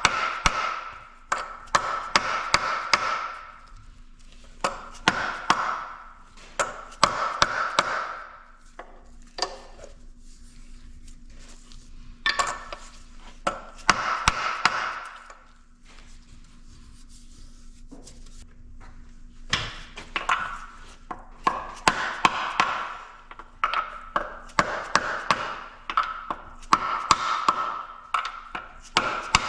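Hammer tapping on metal, in several bursts of quick blows with a short metallic ring and pauses between them, as a crankshaft seal part is driven into place on a Detroit Diesel 2-53 engine.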